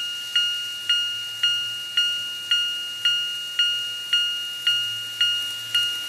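The electronic warning bell of a TOMIX 5555 TCS automatic level-crossing set, giving a steady two-pitch 'kan-kan' ding a little under twice a second, each ding fading before the next. Near the end the light, rapid rattle of an N-gauge train running over the track joins it.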